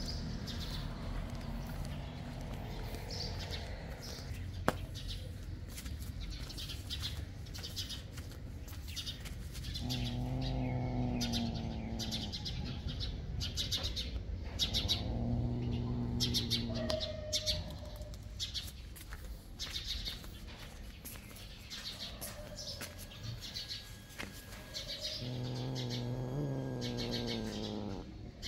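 Rapid high-pitched chirps and squeaks repeating throughout. Three drawn-out, low, wavering cat growls or yowls come about a third of the way in, just past the middle, and near the end.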